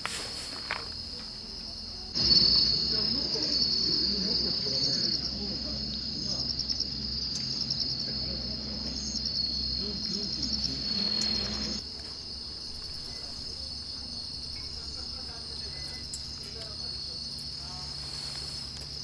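Insects chirring in a steady, high, continuous trill. It grows louder from about two seconds in, with low background noise beneath it, and drops back near twelve seconds.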